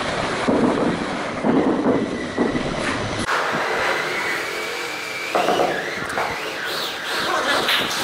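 Scraping and rubbing from floor-tiling work, with rough repeated strokes over ceramic tile, then a round basin worked against wet cement mortar. The sound changes abruptly about three seconds in.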